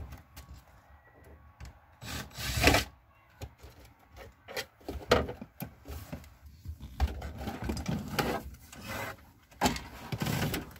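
A vehicle center console being worked out of and into the gap between the front seats by hand: irregular rubbing and scraping with scattered knocks and clicks. The longest scrapes come about two seconds in and again near the end.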